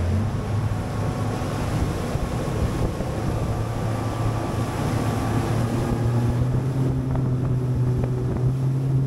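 Bass boat's outboard motor running at speed, a steady drone, with wind buffeting the microphone and water rushing past the hull.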